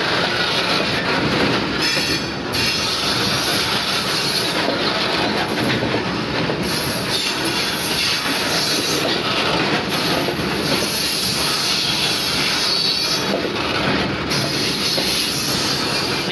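Freight train of steel hopper wagons rolling past at close range: a steady, loud running noise of wheels on the rails.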